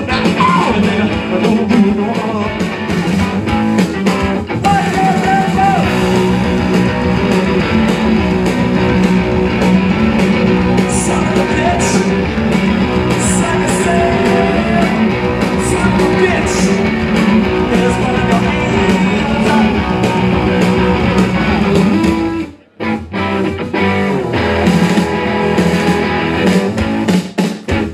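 Live blues-rock band playing loud: electric guitars and drums with a singer on the microphone. The band stops dead for a split second about three-quarters of the way through, then crashes back in.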